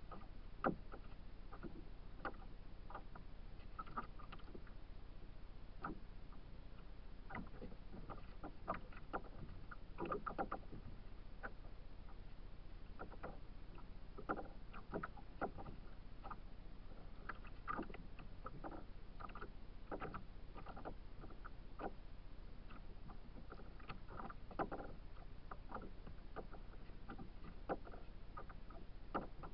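Small choppy waves lapping and slapping irregularly against a kayak's hull, a few short knocks a second over a steady low rumble.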